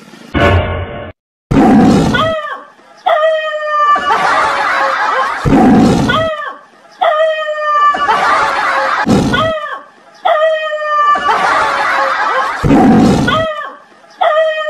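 A dog barking at a fake lion, alternating with a deep lion-roar sound that repeats about every three and a half seconds.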